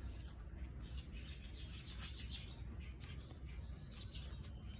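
A small hand trowel scraping and scooping dry, crumbly soil in a series of short, irregular scrapes. Birds chirp in the background over a steady low rumble.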